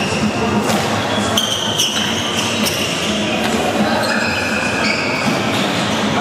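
Sneakers squeaking on a hardwood gym floor during an indoor soccer game: short high squeals, many in a row at changing pitches, with a few sharp knocks of the ball among them.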